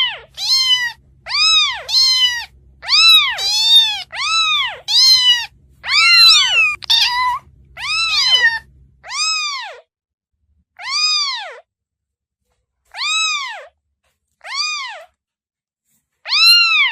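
Kitten mewing over and over, each mew a high call that rises and then falls in pitch. The mews come in quick succession, some overlapping, for about the first nine seconds, then slow to one every second or two.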